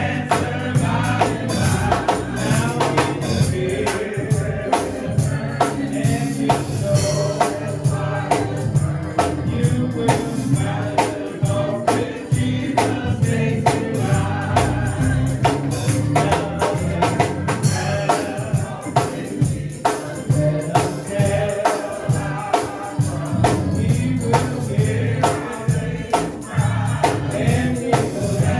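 Gospel choir singing with the band, over a steady beat of tambourine strokes, about two a second.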